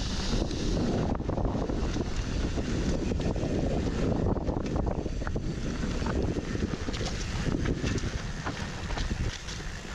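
Wind rushing over the microphone during a fast downhill mountain bike descent on a dirt trail, mixed with tyre noise and many short clicks and rattles from the bike over rough ground. It eases slightly near the end.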